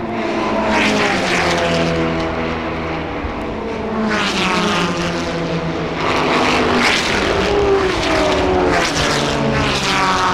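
Racing cars at the 1964 Le Mans 24-hour race passing one after another at speed, each engine note falling in pitch as it goes by. About four pass-bys.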